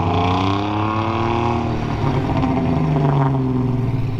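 Vehicle engine revving under load: the pitch climbs for about a second and a half and drops back, then rises and falls again.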